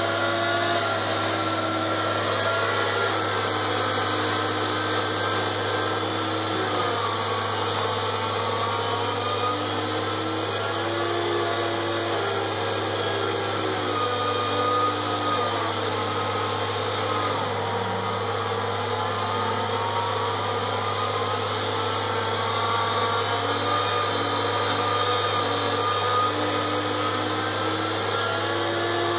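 Tractor-driven forage mill grinding dry corn stalks (stover). It makes a steady, loud machine drone whose pitch dips and recovers a few times as the stalks are fed in.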